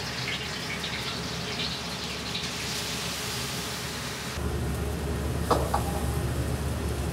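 A steady rush of water in a commercial kitchen. About four seconds in it changes abruptly to a low steady drone, and two sharp metallic clinks follow about a second later.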